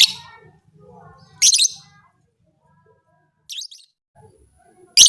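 Lovebird giving short, shrill calls: a loud one about a second and a half in, a fainter one past three and a half seconds, and another loud one at the end, with brief pauses between.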